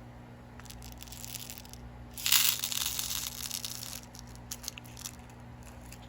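Plastic bead packaging crinkling as it is handled, with light rustles at first and a loud crinkle about two seconds in that fades over a second or so, followed by a few small clicks.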